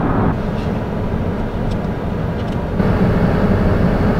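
Steady road and engine noise of a truck driving on a highway, heard from inside the cab. The rumble drops slightly about a third of a second in and comes back up near three seconds, with a few faint ticks in between.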